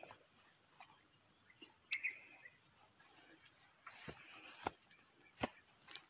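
Steady high-pitched drone of insects in the pepper garden. A short chirp comes about two seconds in, and a few footsteps thud on the dirt path in the second half.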